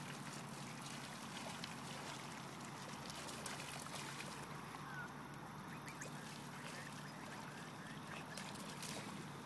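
Faint, steady outdoor hiss with a few faint short bird calls, one about five seconds in, and scattered light ticks.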